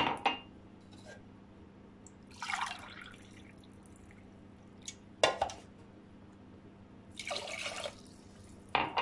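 Water poured by the glassful into a steel pot of sugar to make syrup: two short splashing pours, with a few sharp knocks of the glass being handled in between.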